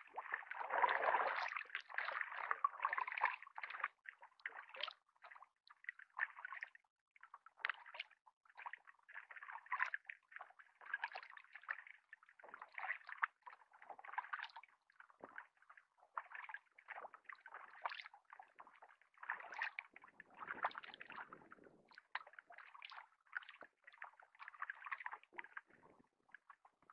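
Double-bladed kayak paddle dipping into lake water with each stroke: repeated splashes, drips and sloshing about once a second in an uneven rhythm.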